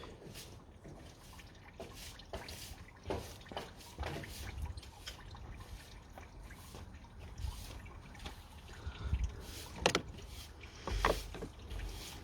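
Scattered light clicks and knocks of hands working the plastic clips and fittings of a Ford Mondeo's coolant reservoir, a little louder about ten and eleven seconds in.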